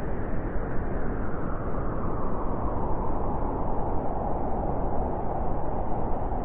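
Steady sleep white noise: an even, muffled hiss with most of its weight in the low and middle range and little treble, turning slightly duller over a few seconds.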